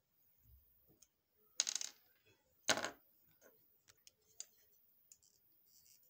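Two short clatters about a second apart, followed by a few faint clicks. They come from small hard parts and tools being handled and knocked against a wooden tabletop while an LED bulb's driver circuit board is worked on.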